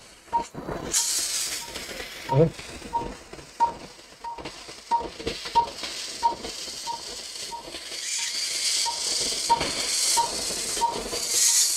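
An operating-room patient monitor beeps steadily, one short tone about one and a half times a second, keeping pace with the patient's pulse. Under it runs a hiss that swells in the last few seconds.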